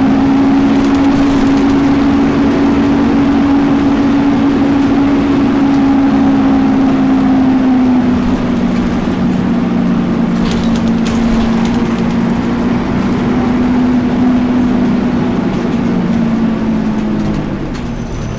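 Volvo B10BLE bus's engine cooling fan running loudly with the engine, a steady hum that drops to a lower pitch about eight seconds in and winds down near the end.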